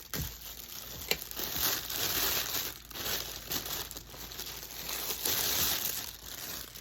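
Packaging wrap around a new bag being crinkled and pulled off by hand, an irregular rustling that swells and fades, with a sharp click about a second in.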